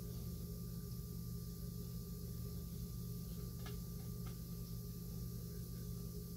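Steady low hum of room tone with a thin high tone over it, and two faint ticks about halfway through.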